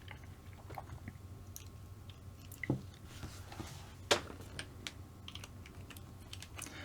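Light clicks and taps of small plastic and metal kit parts being handled and fitted on an RC car's slipper clutch assembly, with two sharper clicks near the middle.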